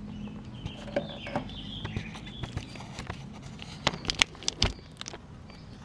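Birds chirping in the background over a low steady hum, with a quick run of sharp clicks and knocks about four seconds in.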